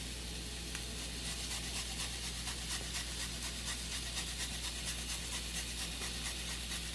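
Faint crackling hiss of a steak sizzling on a hot grill, made of many small irregular ticks, over a steady low electrical hum.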